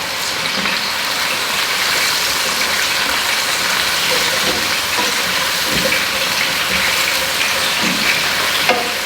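Grouper fillet and mushrooms sizzling in hot olive oil in a frying pan over medium heat: a steady, even hiss.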